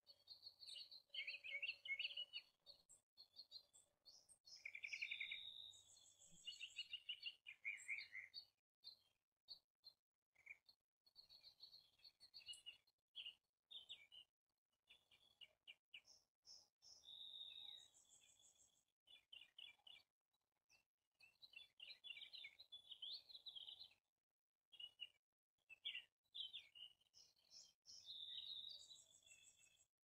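Small birds chirping and calling on and off: quick runs of notes mixed with short, higher peeps, with a couple of brief pauses.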